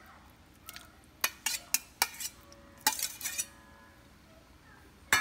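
A steel spoon clinking and scraping against a stainless steel plate and the pan as pieces of salmon are pushed off into the curry: a string of sharp metallic clinks, some with a brief ring of the metal, with the loudest strike near the end.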